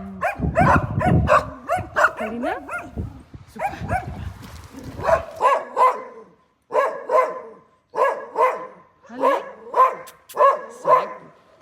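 A dog barking repeatedly in short, sharp barks, about two a second, often in quick pairs. A low rumbling noise runs under the barks for the first half and then stops.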